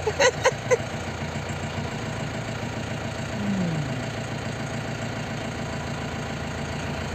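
Safari jeep's engine idling steadily, heard from inside the cabin. A few short spoken syllables come just after the start, and a brief falling hum follows at about three and a half seconds.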